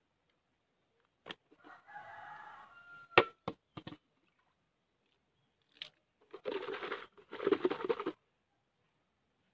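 A rooster crowing, a harsh two-part crow in the second half, with a few sharp knocks earlier, the loudest about three seconds in.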